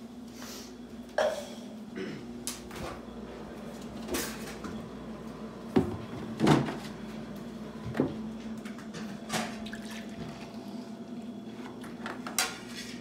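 Kitchen handling noise: about nine separate knocks and clatters, spaced irregularly, from cupboards and containers such as a milk jug, a plastic cup and a syrup bottle being handled and set down on a stone countertop. A steady low hum runs underneath.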